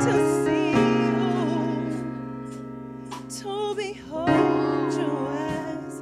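Worship music: long held keyboard chords with voices singing over them.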